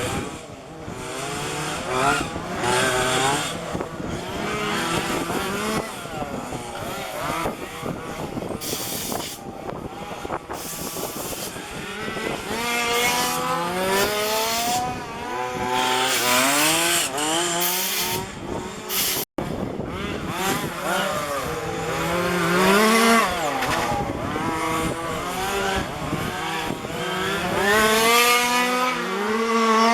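Several 1:5 scale petrol RC cars' small two-stroke engines, revving up and falling back over and over as the cars accelerate and brake around the track, with several engines overlapping at once.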